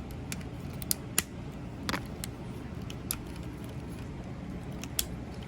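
Scattered plastic clicks and clacks of a Transformers MPM Ratchet figure being handled: parts flipped, folded and tabbed into place while it is transformed.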